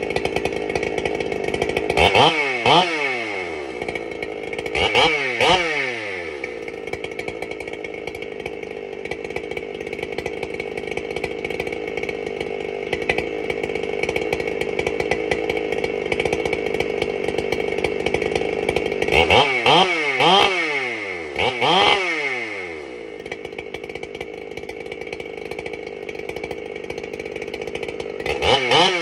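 Husqvarna 395 XP 94 cc two-stroke chainsaw with a dual-port muffler, idling steadily and revved in short throttle blips, each one rising and falling quickly in pitch. There are two blips a few seconds in, two more about two-thirds of the way through, and one at the very end.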